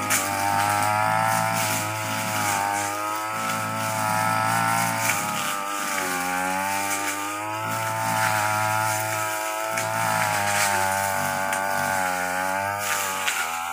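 Stihl brush cutter engine running at working speed, its pitch rising and falling as the operator throttles it and the line cuts through grass and ferns.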